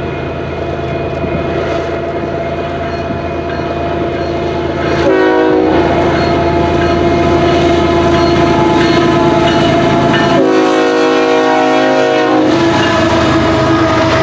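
Canadian Pacific GE ES44AC diesel locomotive running past at the head of a coal train, its engine drone steady. The horn sounds a short blast about five seconds in, then a longer blast of a little over two seconds about ten seconds in.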